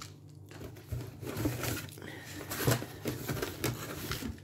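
Hands rummaging in a cardboard box, rustling the honeycomb paper packing with irregular crackles and light knocks.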